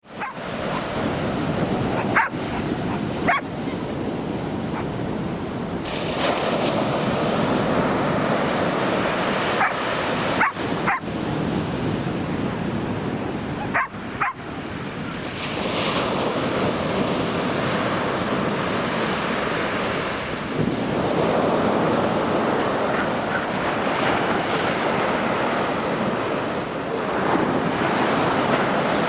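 Sea waves breaking and washing up a beach: a steady surf noise that swells and eases. A few brief sharp sounds come in the first half.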